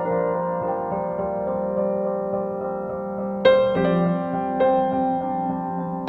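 Slow, soft piano music of held, ringing chords, with a new chord struck about halfway through.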